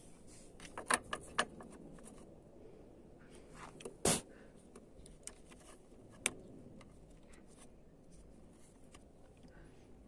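Short metallic clicks and clinks as a BMW E36 door latch striker, with its repaired dome light switch, is handled and fitted back onto its bolt on the door pillar. There is a cluster of clicks about a second in, the loudest click about four seconds in, and one more near six seconds.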